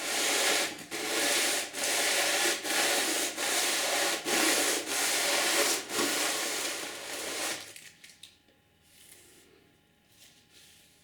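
A small sheet-metal part being rubbed back and forth by hand against an abrasive to square its edges: about nine rasping strokes, one every second or so, stopping about three quarters of the way through.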